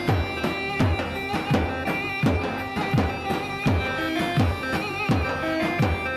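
Live halay dance music: a davul drum beats a steady rhythm, its deepest stroke about every three-quarters of a second, under a keyboard playing a held, wavering melody.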